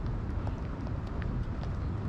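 Outdoor urban background: a steady low rumble with scattered short, high ticks over it.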